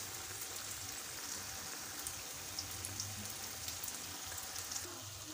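Beef stew in a thick tomato sauce simmering in a metal pan: a steady sizzle with many small bubbles popping.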